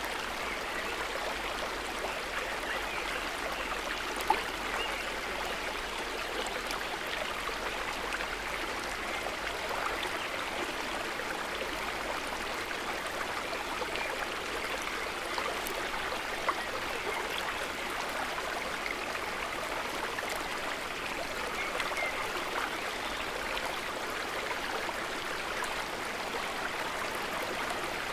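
River water running and babbling in a steady, even rush, with two brief sharp clicks, about 4 seconds and about 16 seconds in.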